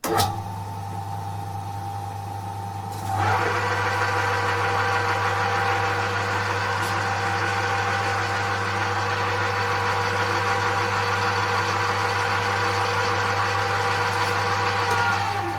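Colchester Master lathe switched on, its electric motor starting suddenly and running with a steady hum. About three seconds in, the level steps up as the clutch takes up the drive to the gearbox, adding several steady whining tones from the belt and headstock gearing. Near the end those tones fall in pitch and the sound drops back as the drive is let out.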